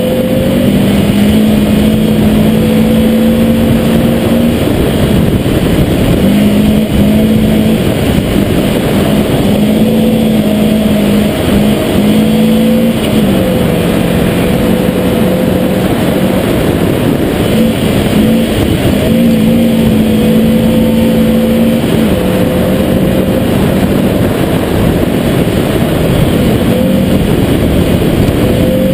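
Rally car engine running hard at high revs on a loose gravel road, its pitch stepping up and down every few seconds with gear changes and throttle. A steady rush of tyre, gravel and wind noise sits under it, heard from a camera mounted outside on the roof.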